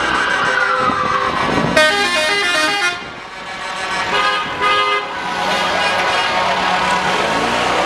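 Vehicle horns honking repeatedly in a slowly moving wedding convoy: a falling tone in the first second, then a quick run of short horn notes at changing pitches about two seconds in, over the running of the vehicles.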